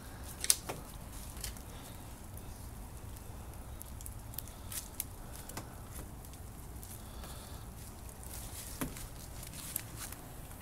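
A dog's paws rustling and crackling through dry fallen leaves under a thin layer of fresh snow, in scattered light ticks and clicks. A sharper click comes about half a second in, over a steady low rumble.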